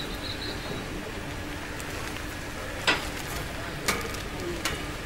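Steady outdoor hiss, broken in the second half by three short sharp clicks about a second apart.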